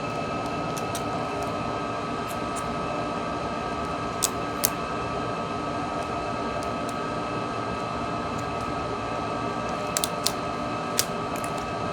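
Steady fan hum with a faint whine, broken by a few small sharp clicks of flex-cable connectors and tools being pressed onto a smartphone's circuit board: two about four seconds in and a few more near the end.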